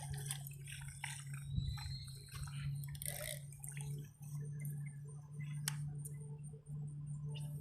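Light water splashing and dripping with scattered clicks, over a steady low hum that cuts out briefly a few times.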